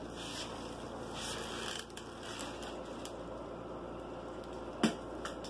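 Scratchy rustling and light clicking, with one sharp knock about five seconds in.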